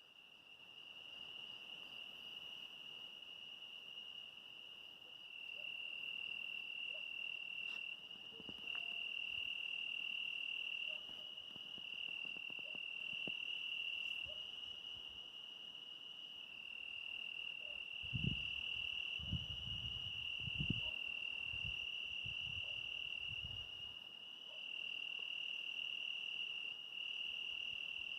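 Crickets trilling in one steady, unbroken high-pitched chorus. A few low thumps come about two-thirds of the way through.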